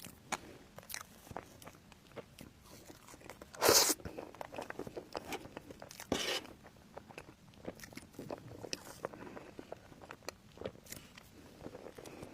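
A person chewing and biting food close to the microphone, with many small wet clicks and crunches, and two louder crunching bites at about four and six seconds in.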